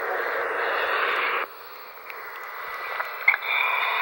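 Hiss and rushing noise from an old cassette tape recording, dropping abruptly about a second and a half in and coming back with a click and a thin steady whine near the end.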